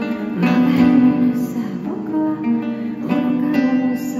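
Solo acoustic guitar playing a live instrumental passage: fingerpicked chords struck a few times, each left ringing into the next.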